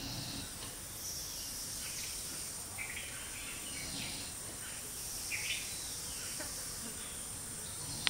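Outdoor insect drone, a steady high-pitched hiss, with short bird chirps every second or so.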